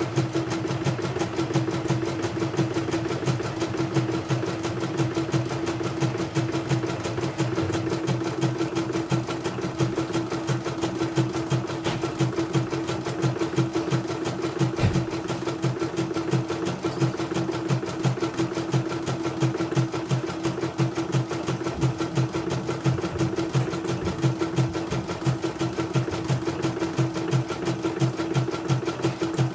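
Portable single-needle computerized embroidery machine stitching out a design at a steady pace: a fast, even clatter of needle strokes over a steady motor hum. It is a test stitch-out after repair of a bobbin case that kept jumping.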